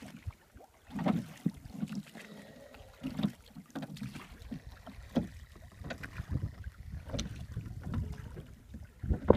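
Oars of a small rowing dinghy dipping and splashing on each stroke, about every two seconds, with wind rumbling on the microphone in the second half and a louder knock just before the end.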